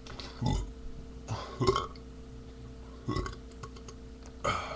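A man burping several times in quick succession: short, separate burps, the loudest a little under two seconds in.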